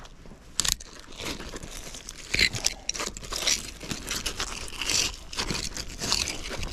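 Irregular scraping, crunching and rustling as a magnet-fishing magnet and its rope, with a crusty rusted lump stuck to the magnet, are hauled up and dragged over a concrete bridge wall. Several sharper scrapes stand out.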